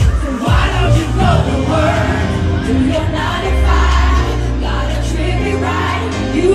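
Live pop music played through a concert sound system: a singer's voice over a band with heavy held bass notes and a drum beat.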